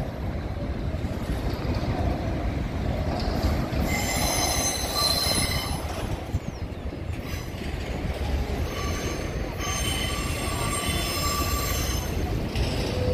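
Empty grain hopper cars rolling past on curving track: a steady low rumble of steel wheels on rail, with high-pitched wheel squeal from the curve coming and going, loudest about four seconds in and again from about nine to twelve seconds.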